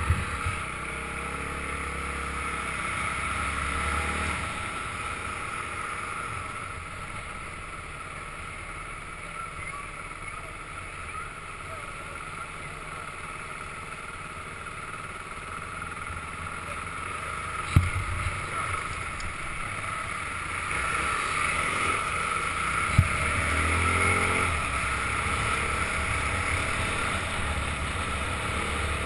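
Off-road motorcycle engines running steadily, with low rumbling at the start and over the last third. Two sharp knocks come about two-thirds of the way through, a few seconds apart.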